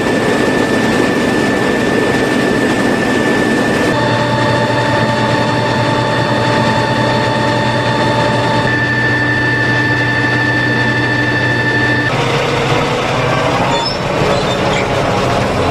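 Fendt Vario 930 tractor's six-cylinder diesel engine running with the slurry tanker rig, a steady engine note overlaid by steady high whines. The mix changes abruptly a few times, about 4 and 12 seconds in.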